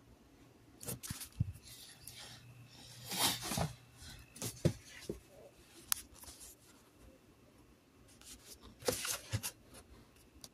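Handling noise: rustling and scattered clicks and knocks as a phone and a cardboard record sleeve are moved about, busiest about three seconds in and again near nine seconds.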